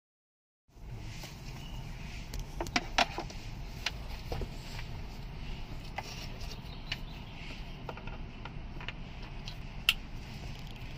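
Hands handling wiring plugs and plastic centre-console trim: scattered sharp plastic clicks and taps, a cluster about three seconds in and a single loud one near the end, over a steady low hum.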